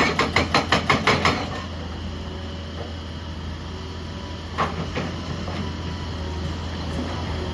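Heavy excavator running steadily, with a quick even run of about eight metal clanks in the first second and a half and a few more about two-thirds of the way in.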